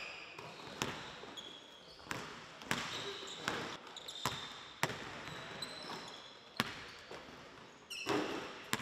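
Basketballs bouncing on a gym's hardwood court during a shooting drill: irregular sharp thuds, roughly one or two a second, from several balls at once in a large gymnasium.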